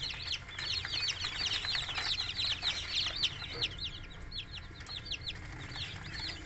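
A brood of newly hatched bantam chicks peeping, many short falling peeps overlapping, thinning out for a couple of seconds past the middle before picking up again. A low steady hum runs underneath.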